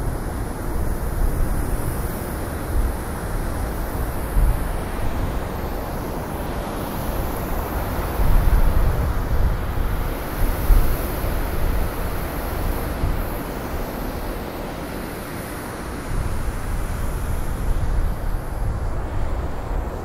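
Blizzard wind blowing in gusts, a deep rushing noise that swells and eases, loudest about halfway through and again near the end.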